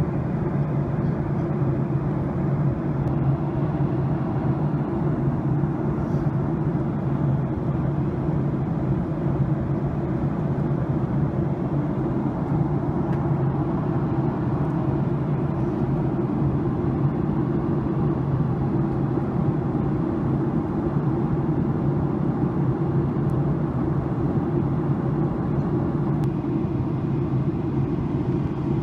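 Steady cabin noise of a jet airliner in descent: an even rush of airflow over a low engine drone, unchanging throughout.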